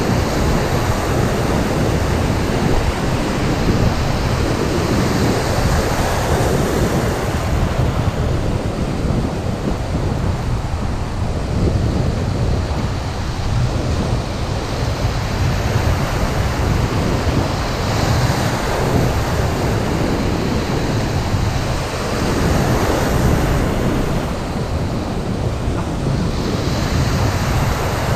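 Small waves breaking and washing in shallow surf right around the microphone, the rush swelling every few seconds as each wave comes in, with wind buffeting the microphone.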